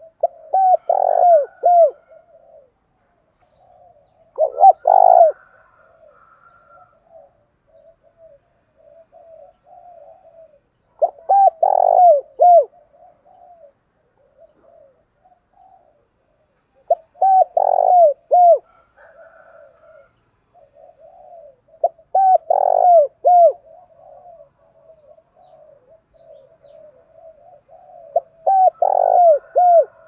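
Spotted dove cooing its song, a quick phrase of several coos repeated about every five to six seconds, six phrases in all, with fainter cooing between the phrases.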